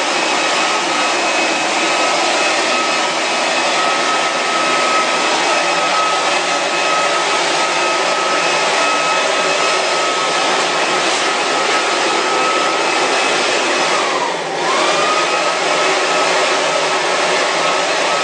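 An electric blower motor running steadily, with a loud rush of air over a steady whine. About fourteen seconds in, the whine dips in pitch and the sound drops briefly before recovering.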